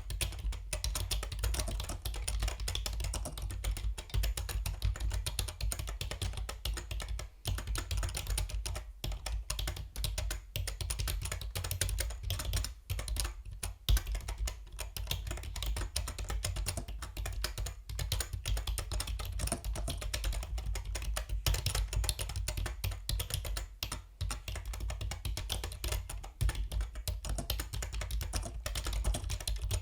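Typing on a Yunzii B307 mechanical keyboard: a fast, continuous stream of key clicks with a few short pauses.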